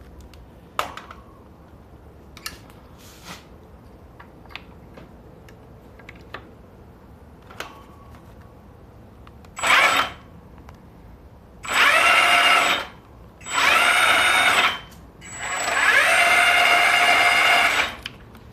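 A small electric motor whirring in four bursts in the second half, the last and longest about two and a half seconds, its pitch rising as it spins up. A few light clicks and knocks come before.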